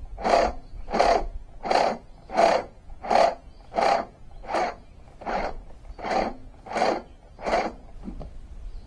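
Rhythmic rasping strokes, about three every two seconds, a dozen or so in a row, stopping near the end.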